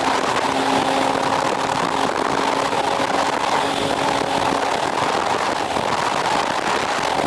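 Motorcycle engine running steadily at expressway cruising speed, with wind noise over it.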